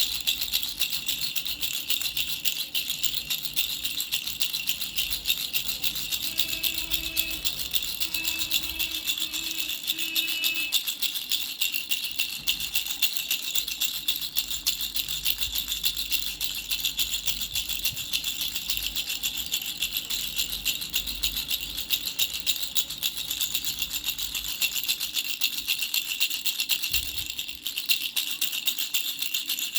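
Baby rattle shaken fast and without a break, a dense, even shushing of many small rattling beats.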